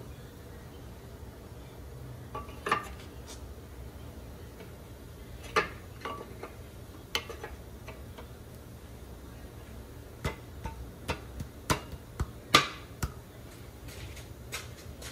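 Metal main bearing caps clinking and knocking against an LS engine block as they are set onto the main saddles over the crankshaft. The sharp metal clicks come at irregular intervals, most of them close together in the last third.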